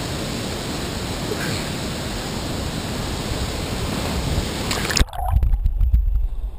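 Steady rush of a creek waterfall. About five seconds in there is a sharp knock, and the sound turns to a muffled low rumble and sloshing as the waterproof camera's microphone goes under the water.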